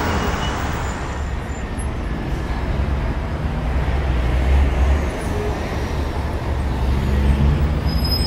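Dense multi-lane expressway traffic: a steady, deep rumble of many cars and trucks, swelling a little about halfway through and again near the end.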